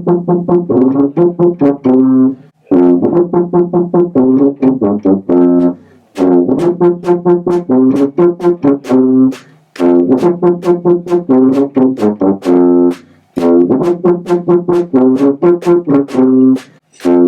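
Background music played on brass instruments, in quick staccato notes. It comes in phrases of about three seconds, each followed by a brief pause.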